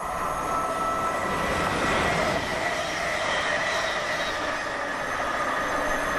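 Class 360 electric multiple unit passing through the station at speed: a rushing rumble of wheels on rail with steady high tones over it, loudest about two seconds in.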